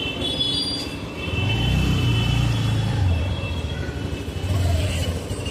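Low rumbling road-traffic noise, swelling loudest for a couple of seconds starting about a second in and again briefly near the end, with faint high steady tones of a horn or buzzer in the first few seconds.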